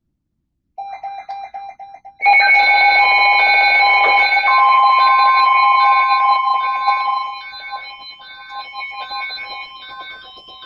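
NOAA Weather Radio warning alert: after a moment of silence a loud electronic alarm comes on about two seconds in, steady tones under a beep that pulses about twice a second, with a steady tone near 1 kHz, the weather-radio warning alarm tone, joining about halfway through. Around seven seconds in the alarm drops in level but keeps beeping.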